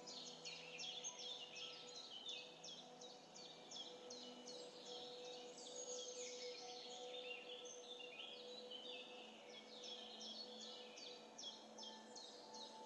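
Faint, dense chorus of small birds chirping, with many quick falling chirps overlapping throughout, over a few soft held tones.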